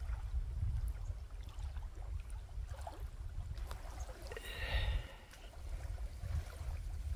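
Wind rumbling on the microphone over small lake waves lapping on a sandy shore. A short higher-pitched sound stands out about four and a half seconds in, and the rumble dips just after it.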